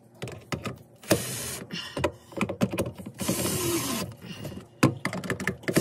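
Cordless drill-driver running in two short spurts while tightening a drain fitting on a garbage disposal, with clicks and knocks of the tool and fitting being handled in between. The second run slows as it ends, with the fitting coming tight.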